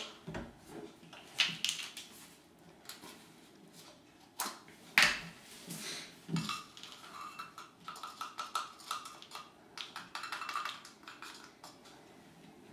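A baking powder can being handled and opened: several sharp knocks and clicks, the loudest about five seconds in, then a run of quick light scraping and clinking.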